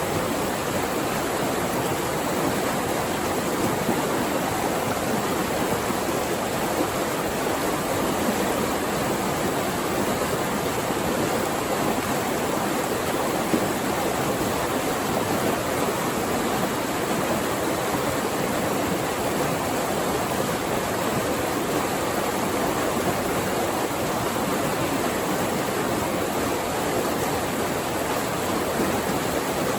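Flowing water rushing steadily, an even, unbroken sound with no distinct splashes.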